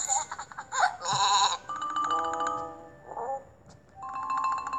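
Cartoon sheep sound effect from a children's story app: two wavering bleats, followed by a short run of ringing marimba-like notes around the middle and another near the end.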